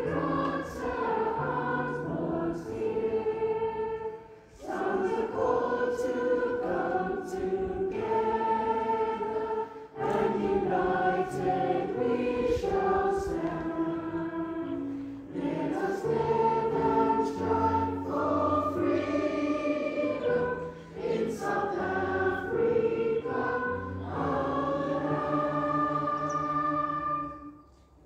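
A choir singing in phrases with short breaks between them, ending on a long held chord that cuts off about half a second before the end.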